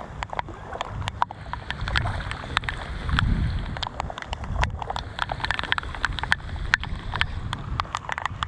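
Kayak being paddled down fast floodwater in the rain: paddle strokes and water splashing over a low rumble, with many irregular sharp ticks of raindrops striking the camera.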